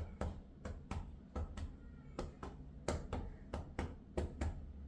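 Cupped-hand chest percussion on a child's front chest: a steady run of quick pats, about four a second, delivered with moderate force, patting upward to loosen and move phlegm.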